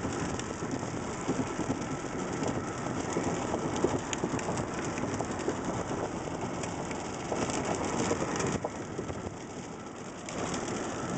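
Steady rain noise mixed with the running of a vehicle on the road, easing briefly about nine seconds in.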